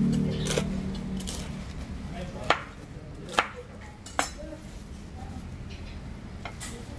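Kitchen knife chopping cooked meat on a wooden cutting board: a few light taps at first, then three sharp chops about a second apart near the middle.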